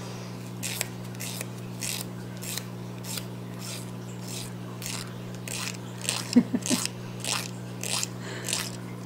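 Emery board filing a capuchin monkey's toenails: a run of short strokes, about two a second.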